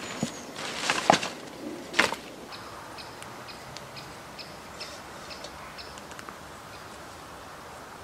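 A few sharp knocks of split kindling being handled and set down, loudest about one and two seconds in. Then a bird calling with short high chirps repeated about three times a second for several seconds over a quiet forest background.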